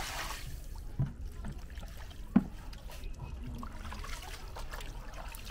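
Hands sorting wet scavenged meat scraps in a basin of liquid: wet dripping and small clicks of the pieces being handled, with two sharper knocks, the louder one about two and a half seconds in.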